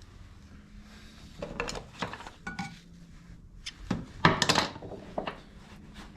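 Metal hand tools clinking and clattering as they are rummaged through, with a brief ringing chink about two and a half seconds in and a louder cluster of clanks about four seconds in.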